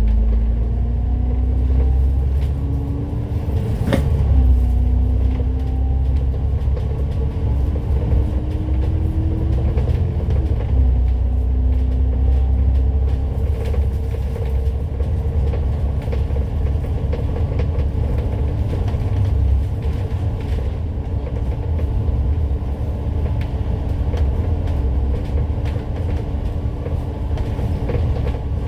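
A Citybus bus pulling away under power: the engine note climbs, drops back at gear changes about 4 and 10 seconds in, then settles into a steady run with a deep rumble. A sharp knock comes at the first gear change.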